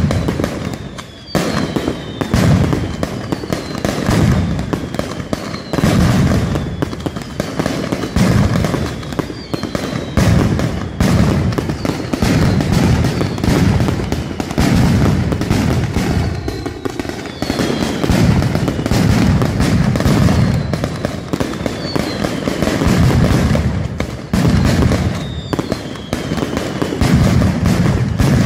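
Mascletà firecracker barrage: a dense, unbroken crackle of ground-fired firecrackers with heavy booms about once a second, and repeated falling whistles among the bangs.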